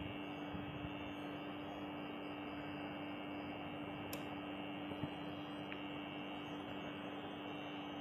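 Steady electrical hum on one held tone from a running egg incubator, with a couple of faint light taps as eggs are set on its wire tray.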